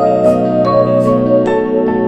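Background music: a melody over sustained chords, with new notes coming in about every half second.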